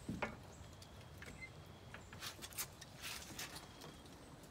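Faint scattered clicks and knocks of a padlock and hasp being handled and a wooden shed door being unlatched and swung open, with one louder knock at the start.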